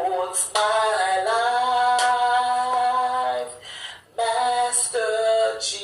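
A voice singing a slow worship song, holding long notes in two phrases with a short break about four seconds in.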